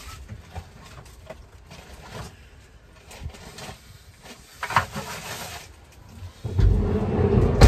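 Scattered faint knocks and rustles of handling, then wind buffeting the microphone near the end as a loud low rumble for about two seconds.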